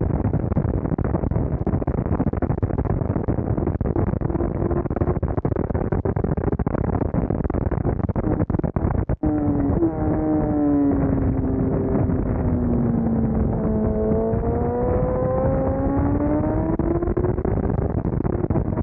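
Sport motorcycle at speed on a race track, recorded from a tail-mounted camera with heavy noise reduction. Wind rush covers the first half. After a brief dropout about halfway, the engine note comes through, falling as the bike slows and then rising again as it accelerates.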